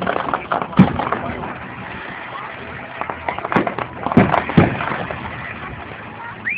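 Aerial fireworks shells going off in a series of sharp bangs, the loudest about a second in and again around four seconds in, with fainter pops and crackle between them.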